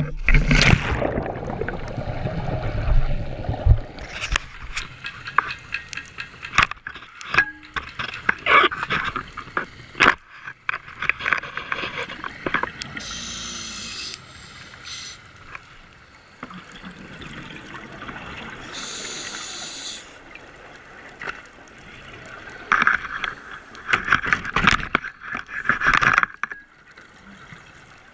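A scuba diver's entry into the sea: a loud splash and churn of water, then the muffled underwater wash of water and bubbles heard through the camera's housing. Two hissing rushes of exhaled regulator bubbles come near the middle, and a run of loud bubbling bursts a few seconds before the end.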